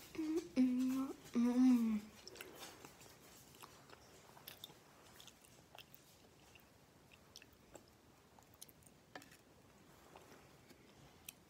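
A girl chewing chocolate with her mouth closed. There are a few short pitched hums in the first two seconds, then only faint, scattered chewing clicks.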